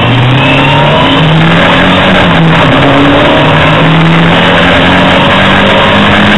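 A Hillman Imp's rear-mounted four-cylinder engine running hard, heard from inside the cabin, its pitch climbing in steps as the car accelerates.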